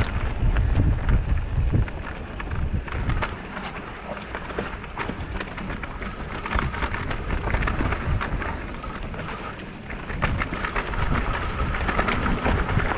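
Mountain bike descending a dirt singletrack: tyres rolling over loose dirt and stones with many small rattles and clicks, and wind rumbling on the microphone. Louder over the first two seconds and again near the end.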